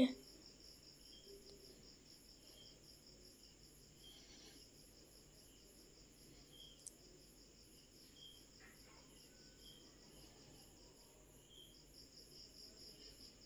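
Faint, steady high-pitched chirping of insects, an even pulse about three times a second.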